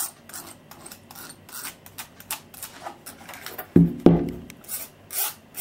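A fine-toothed tool scratching fine lines into plaster in short, quick strokes, about three a second. Two dull thumps come close together about four seconds in.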